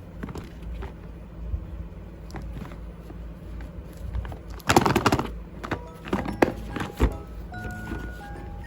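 Scattered clicks and knocks, with a loud noisy rustle or scrape about five seconds in and a few sharp clicks after it; background music with held notes starts near the end.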